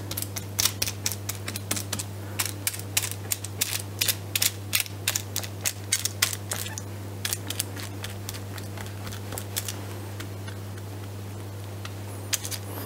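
Quick, irregular taps and clicks of a plastic spatula patting and pressing a grated raw potato mixture flat on a paper-lined metal baking tray. The taps are dense for the first six or seven seconds, then thin out, over a steady low hum.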